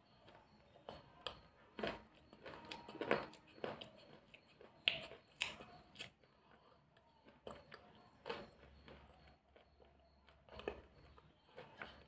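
A person chewing and crunching a mouthful of food close to a clip-on microphone: irregular crunches and mouth clicks, with a few louder crunches around the middle.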